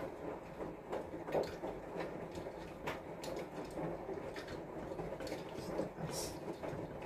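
Scattered light clicks and taps from hands handling a layered sponge cake on a cake stand, over a steady low background rumble.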